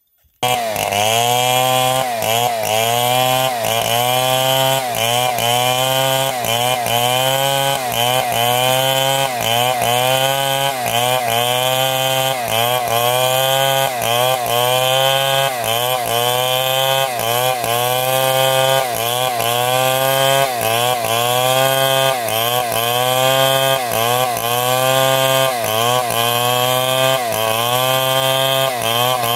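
Power saw cutting through a large piece of wood, its motor running loud and steady under load. The pitch dips and recovers about once a second as the blade bites. It starts abruptly about half a second in.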